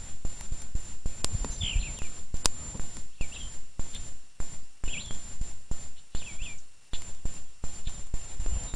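Gusty wind buffeting the microphone, with sharp crackles and pops from a small twig campfire, while a bird calls over and over in short chirps about once a second.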